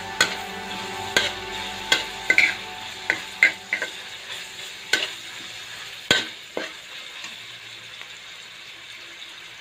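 Sliced pork, onion and garlic sizzling in oil in a wok while a metal spoon stirs them, with sharp clinks and scrapes of the spoon against the wok. The clinks stop about six and a half seconds in and the sizzle carries on a little quieter.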